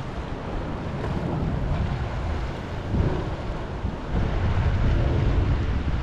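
Wind buffeting the microphone, with small ocean waves washing and lapping over lava rocks along the shore.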